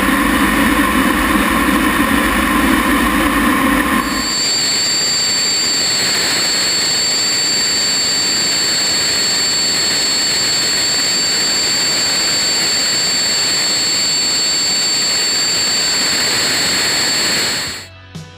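T-33 jet trainer's turbojet running at a steady power, a constant roar. About four seconds in, the low rumble drops out and two steady high-pitched whines come in; the sound cuts off suddenly just before the end.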